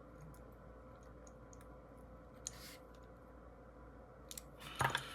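Faint small clicks and ticks of a small fidget toy being screwed back together by hand, with a few sharper clicks near the end.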